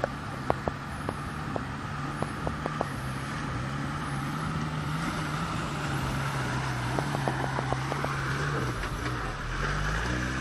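A four-wheel drive's engine running at a steady low pitch that dips briefly near the end. Over it come two clusters of sharp clicks or knocks, the first in the opening few seconds and the second a little past the middle.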